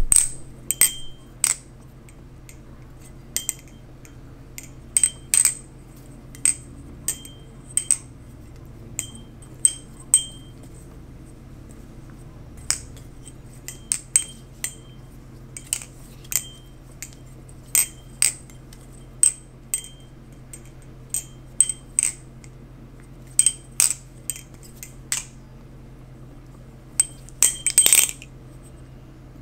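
A Squid Industries Kraken balisong (butterfly knife) with speed-channeled handles being flipped. Its handles and blade strike together in irregular runs of sharp metallic clicks, each with a short, high, nice little ring that comes from the speed channels.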